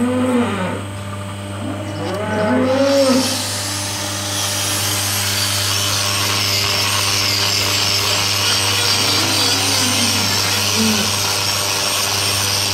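Angle grinder with a hoof-trimming disc grinding down a cow's hoof: it starts about three seconds in and then runs steadily, a high whine over a loud hiss. Before it, a few short lowing calls from the cow.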